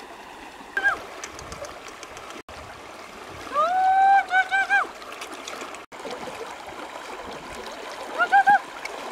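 Shallow river water flowing steadily over stones, with short pitched calls over it: one about a second in, a rising call followed by three short ones midway, and a quick pair near the end.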